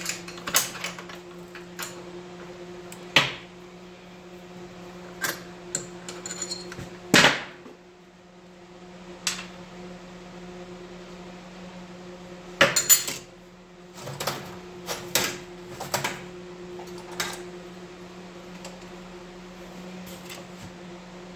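Metal tools being handled and set down on a hard surface: scattered clinks and knocks, the loudest about three, seven and thirteen seconds in. A steady low hum runs under them.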